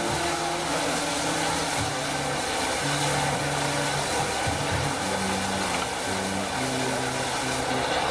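Steady hiss of steam escaping from the cylinders of the rebuilt Southern Railway Battle of Britain class Pacific 34053 'Sir Keith Park' as it stands with steam up. Beneath the hiss, a brass band plays a slow line of low held notes that change about once a second.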